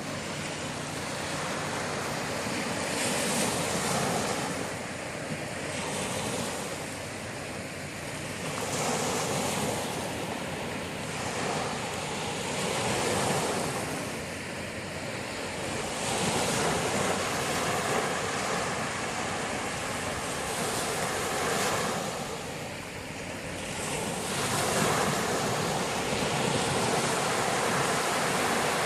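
Sea waves breaking and washing up the shore: a continuous rush of surf that swells and eases every few seconds.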